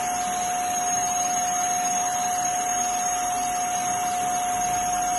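Vacuum cleaner running steadily, a constant hum with a high whine, as its hose nozzle is drawn over a cat's fur.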